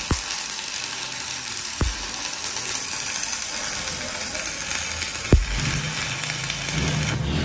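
Electric arc welding on a steel disc held in a lathe: a steady crackling hiss from the arc, with a few sharp clicks, and a low hum coming in near the end.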